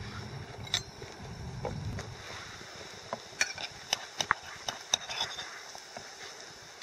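Metal fork clicking and scraping against a small camping frying pan while turning slices of bread frying in butter, over a faint sizzle. The clicks come in a quick run from about halfway through.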